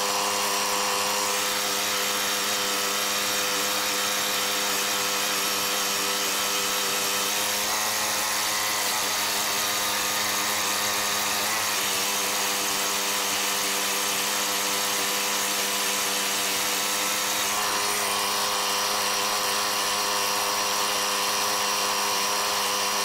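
Kubota B2650 compact tractor's three-cylinder diesel engine running steadily at low revs, still warming up a couple of minutes after a cold start at freezing. Its pitch shifts slightly a few times.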